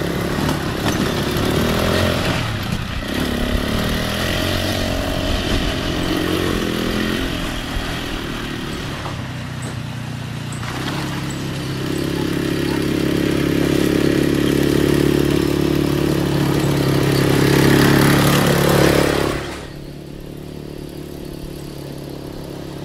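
Small ATV quad bike engine running as it is ridden along a dirt trail, its pitch rising and falling with the throttle. It is loudest and revs up a few seconds before the end, then drops suddenly to a quieter level.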